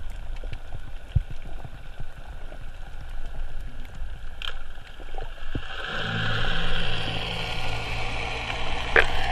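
Underwater ambience picked up through a GoPro's waterproof housing: a low rumble with scattered sharp clicks. About six seconds in, a steady low hum with a hiss over it comes in, and a sharp click sounds near the end.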